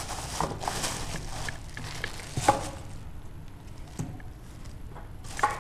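A thin plastic bag rustling as it is handled, with a light knock about halfway through and a sharp click near the end.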